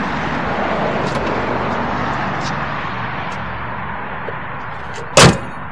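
A car hood slammed shut about five seconds in, one loud sharp bang, over a steady background hiss.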